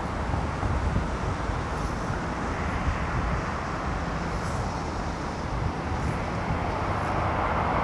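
Steady rumble of storm wind with distant jet aircraft engine noise, growing a little louder near the end.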